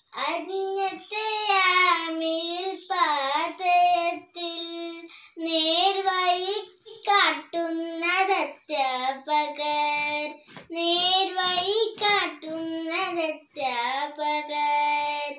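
A young girl singing a song solo and unaccompanied, in phrases with long held notes and a slight waver on them.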